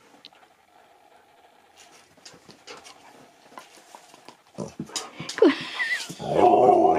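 Husky panting softly, then a few seconds in a run of sharp wet licking and mouthing sounds as it noses a chocolate Easter egg held out to it, and near the end a loud short vocalization from the dog.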